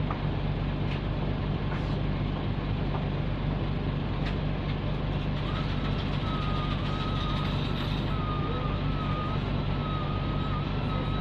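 Interior running sound of a Nissan Diesel K-U31L bus with its PE6H diesel engine, a steady drone under way. About five seconds in, a thin high whine joins and holds, wavering slightly: the abnormal noise this bus is known for.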